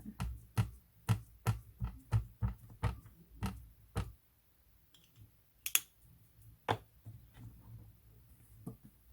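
An ink pad dabbed repeatedly onto a rubber stamp: about ten quick, light taps in the first four seconds. Two sharper clicks follow a little later.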